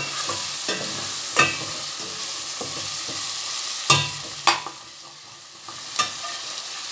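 Diced carrot and zucchini sizzling as they fry in oil and spice paste in a stainless steel pot, while a metal spoon stirs them, knocking and scraping against the pot several times.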